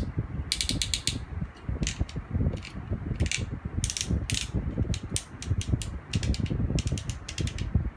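Plastic ratchet hip joints of a Transformers Power of the Primes Abominus figure clicking as the legs are swung, in quick runs of sharp clicks over rubbing and handling noise. A shim-repaired joint and a worn, loose one are being compared by their clicks.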